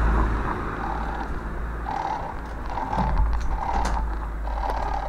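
Armstrong MT500 military motorcycle's single-cylinder engine running at low revs as the bike rolls slowly, a steady low rumble.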